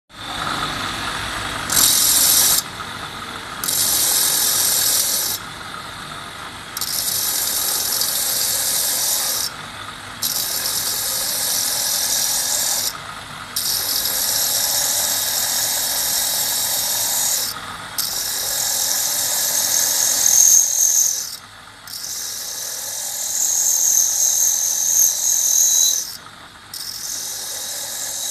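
Glass drilling machine with a water-cooled diamond core bit grinding into a glass disc: a gritty, hissing grind that cuts in and out every few seconds over the steady run of the drill motor. In the later part a thin high whine rides on the grinding.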